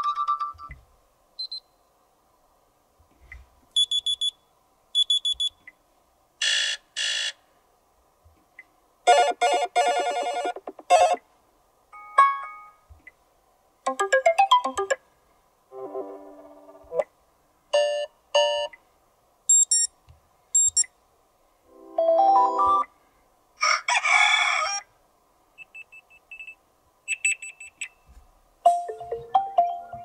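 Sony Xperia 5 III's built-in alarm tones previewed one after another through the phone's speaker: about a dozen short snippets of electronic beeps, buzzes and chiming melodies, each cut off after a second or so when the next tone is picked.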